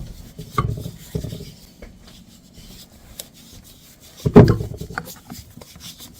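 Hands rubbing together with a handful of dry flour to scrub sticky shortening and buttermilk dough off them: a dry, rasping rub. A few soft knocks come near the start, and one louder thump a little over four seconds in.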